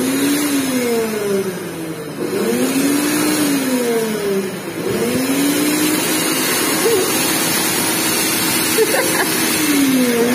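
A vehicle engine heard while driving, over steady road noise. Its note drops and climbs again several times as the vehicle slows and speeds up, and holds level for a few seconds past the middle.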